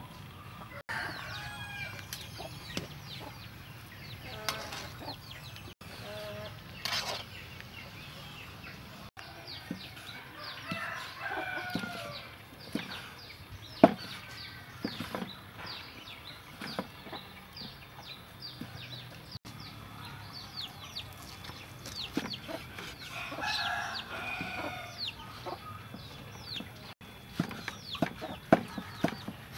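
Chickens clucking off and on. A cleaver strikes a wooden chopping board, once sharply about halfway through, then in a quick run of chops, about three a second, near the end, cutting boiled pork.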